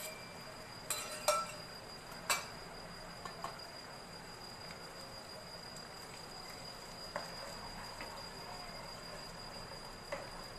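Beaten eggs frying in hot oil in a non-stick wok, with a quiet steady sizzle and a few clinks of the spatula against the pan in the first couple of seconds. A steady high whine runs underneath.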